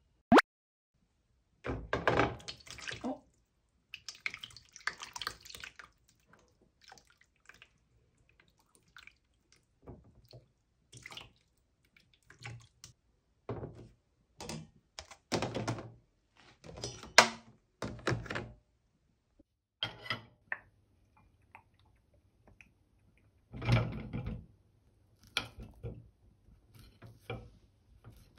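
Kitchen handling sounds: plastic ice-cube trays and containers clattering and knocking on a stainless-steel counter, with short bursts of running water, coming in irregular bursts. There is a sharp click right at the start.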